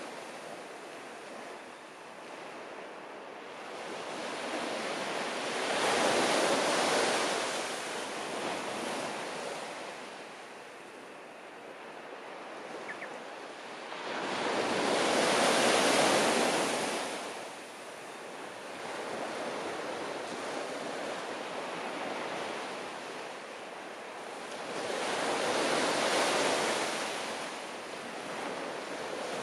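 Sea waves breaking and washing up the shore, swelling three times about ten seconds apart.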